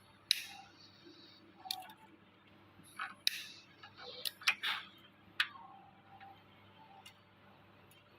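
Irregular sharp plastic clicks and short scrapes, about eight in five seconds and bunched around the middle, from wiring connectors being worked loose and unplugged from a circuit board.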